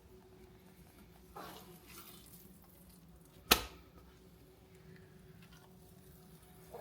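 Hands trimming a raw brisket with a knife: soft scraping and handling sounds, with one sharp knock about halfway through, over a faint steady hum.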